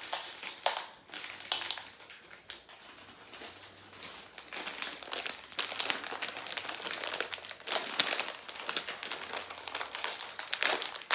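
Plastic candy bag crinkling and rustling in irregular bursts as it is handled and torn open.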